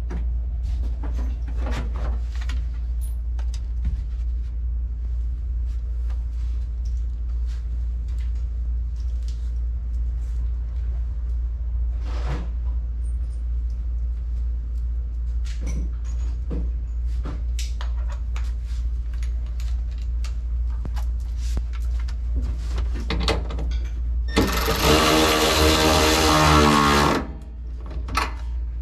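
Hand work on a metal bracket: scattered clicks and knocks over a steady low hum, then a power tool's motor runs for about two and a half seconds near the end.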